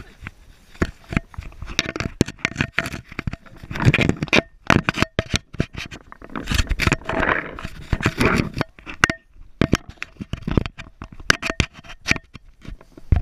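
Footsteps on gravel and grass, mixed with rubbing and knocking from a hand-held action camera: irregular clicks and scrapes, with stretches of rustling about four seconds in and again around seven to eight seconds.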